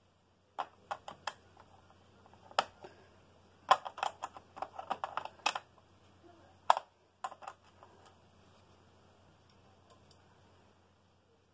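Irregular sharp clicks and taps of small hard plastic and metal parts being handled on the underside of a Toshiba Portégé R700 laptop during disassembly: screwdriver, screws and cover panels. They come in quick clusters through the first seven seconds or so, with two louder single clacks among them.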